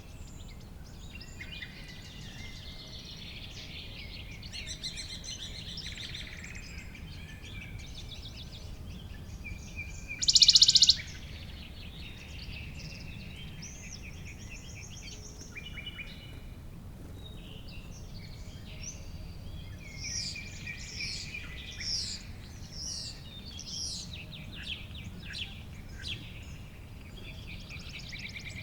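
Several wild birds singing and calling in a summer meadow, chirps and trills overlapping, over a steady low background rumble. About ten seconds in, a much louder, rapidly pulsed buzz sounds close by for under a second.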